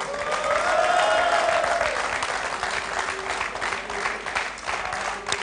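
Studio audience applauding a card-trick reveal, loudest in the first two seconds, with a drawn-out voice cheering over the clapping at the start.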